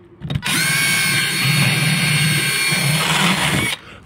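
Power drill spinning a carbide burr bit, grinding out the timber of a door-jamb strike opening to give a mortice lock's bolt more clearance top and bottom. A short blip of the motor comes first, then it runs steadily for about three seconds and stops near the end.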